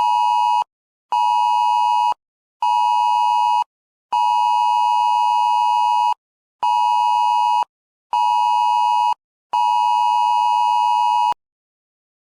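Emergency alert attention tone: a loud, steady two-note beep in a long, short, short pattern with half-second gaps, ending on a long beep about a second before the end. The cadence of two-second and one-second tones is that of the Wireless Emergency Alert signal, announcing an alert message.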